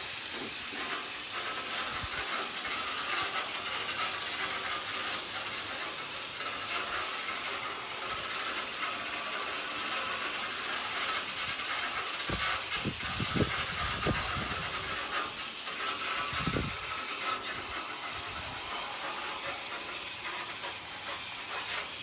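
Straight stream of water from a garden hose spraying steadily into the coil fins of a central air conditioner's outdoor condenser unit, washing caked dirt out, a steady hiss. A few dull low thumps come near the middle.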